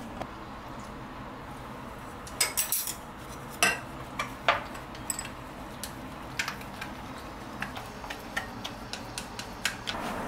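Clinks and taps of kitchen prep: a utensil knocking against a glass mixing bowl while frying batter is stirred, with a few sharper knocks about two and a half to four and a half seconds in and lighter scattered ticks after.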